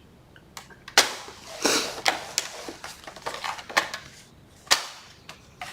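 Stiff cardstock being handled and creased along freshly made score lines: a run of sharp clicks, taps and short papery scrapes, the loudest about a second in and again near the end.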